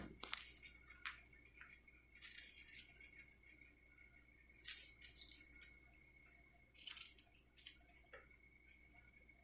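Faint, scattered scrapes and clicks of hands working with ingredients on a kitchen counter: about eight short sounds spread through, over a faint steady high whine.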